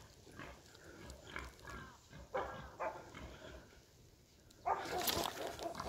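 Animal cries: a few short calls, two sharper ones a little over two seconds in, then a louder, longer bout of cries near the end.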